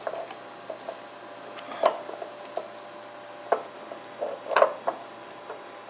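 A gloved hand fitting a hydraulic oil filter onto its filter head under a zero-turn mower: a few light, scattered knocks and rubbing sounds, over a faint steady hum.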